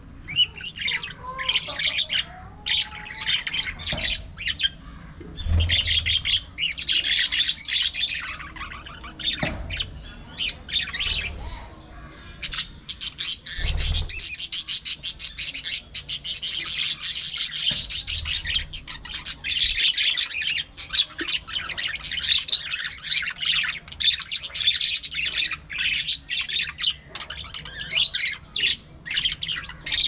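A flock of budgerigars chattering and warbling without a break, many short chirps and squawks overlapping one another.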